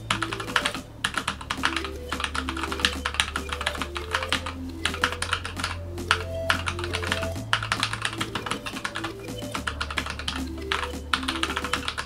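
Fast continuous typing on a Keychron K8 mechanical keyboard with brown tactile switches: a dense patter of key clicks and clacks, with brief pauses, over background music.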